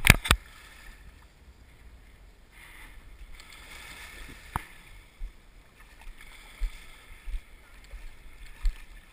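Handling noise from a small camera: two sharp knocks at the very start and a single click about four and a half seconds in. Between them is a faint steady hiss with scattered soft low thumps.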